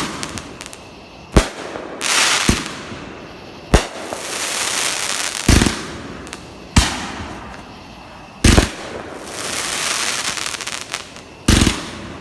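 Fireworks going off: about eight sharp bangs, one every second or two, each followed by a long crackling hiss.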